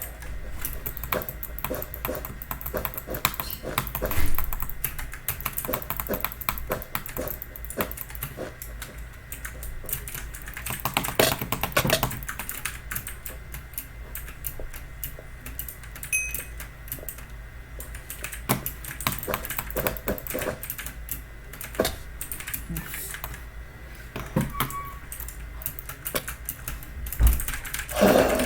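Typing on a Logitech mechanical keyboard with clicky switches, Logitech's version of blue switches: a steady, irregular run of key clicks with a few louder strokes.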